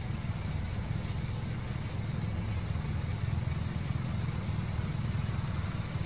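A steady low rumble with a faint hiss above it, unbroken and even throughout.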